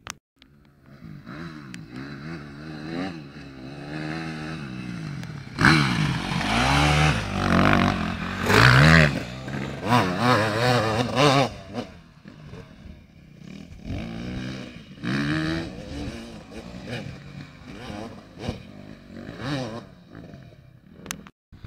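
KTM dirt bike engine revving up and down through the throttle as it rides the motocross track. It is loudest about six to eleven seconds in as the bike passes close, then fainter, with more short revs.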